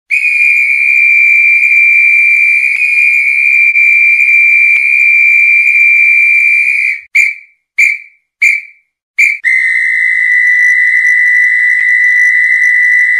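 Referee's whistle blown in one long blast of about seven seconds, then four short toots, then another long blast a little lower in pitch.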